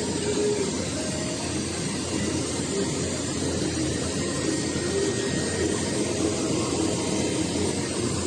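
A workshop power tool running steadily with a continuous whirring, airy noise.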